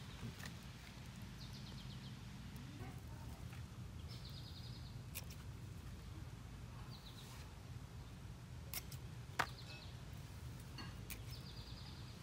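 Faint garden ambience: a steady low hum, with short high bird trills recurring every couple of seconds and a few light clicks.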